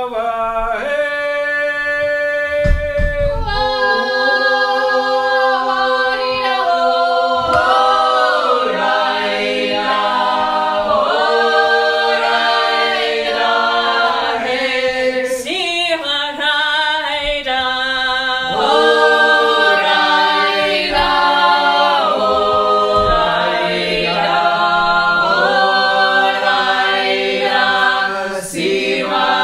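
Small vocal ensemble singing a Georgian polyphonic folk song a cappella: several voices hold sustained chords in close harmony and move together from one chord to the next. There is a brief low thud about three seconds in.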